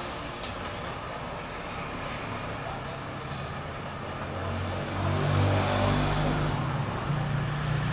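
Street traffic noise, with a motor vehicle engine running close by and growing louder about five seconds in.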